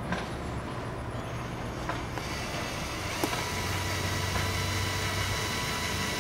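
Cordless drill spinning a foam polishing cone at medium speed, buffing plastic-headlight cleaner into a crack in a plastic vehicle body panel. Its motor makes a steady whine that grows stronger about two seconds in.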